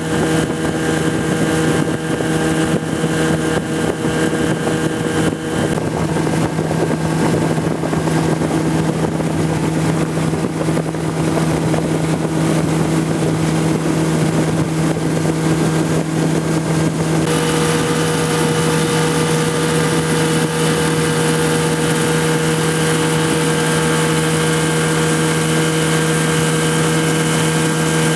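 Motorboat engine running at a steady speed: a loud, even drone that holds one pitch. The rushing hiss of water and wind over it grows brighter about two-thirds of the way through.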